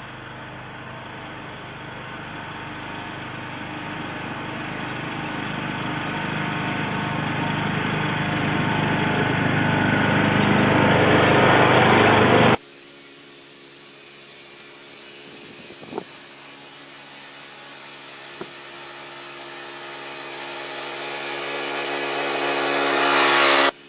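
Husqvarna lawn tractor engine running as the tractor pushes snow with a homemade wooden plow blade, growing steadily louder as it drives closer. It cuts off suddenly about halfway through, then a second approach starts quieter and builds up again, with two faint clicks along the way.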